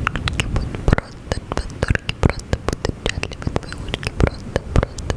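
Close-up ASMR mouth sounds: a rapid, irregular run of wet clicks and smacks right at the microphone, with faint whispering. A low rumble in the first second fades out about a second in.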